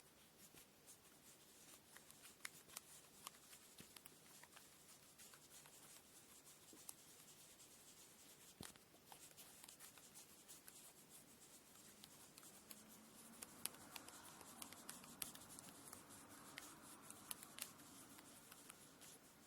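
Faint hand-work sounds of handling cotton braiding thread: light scattered clicks and taps, with a soft continuous rubbing that starts about twelve seconds in.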